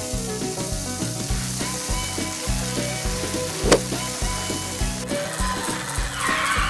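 Sizzling sound effect of a steak frying on a barbecue grill, over background music with a steady beat; the sizzle stops about five seconds in.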